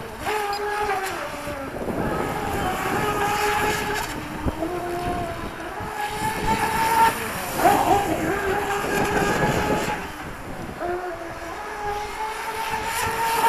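Electric RC F1 outboard boat's brushless motor (XTeam 3674, 2200KV) whining as the boat circles, its pitch rising and falling again and again with the throttle, over the hiss of water spray. It is being warmed up on easy laps.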